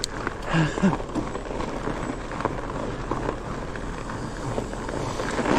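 Fat-bike tyres rolling over an icy trail, a steady rushing noise, with a short vocal sound about half a second in.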